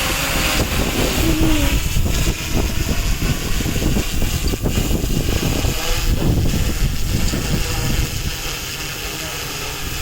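Strong gusty wind rumbling and buffeting on the microphone, over the faint hum of a DJI Inspire 2 quadcopter's propellers that fades away after the first second or so.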